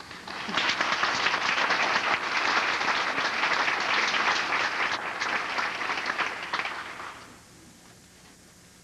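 Audience applause. It builds within the first second, holds for about six seconds, then dies away about seven seconds in.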